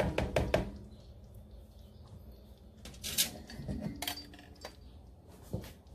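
A spoon knocking against the rim and side of a metal pan of thick cream sauce: a quick run of clinks at the start, then a few single clinks and taps.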